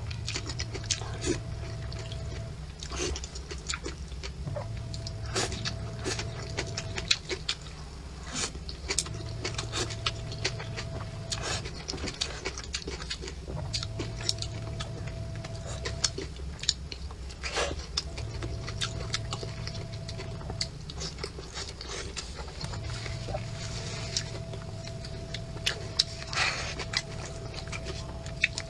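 Close-miked eating sounds of a person chewing braised pork trotter: wet chewing, biting and lip smacks with many short sharp clicks. Under it, a faint hum with a steady tone switches on and off every couple of seconds.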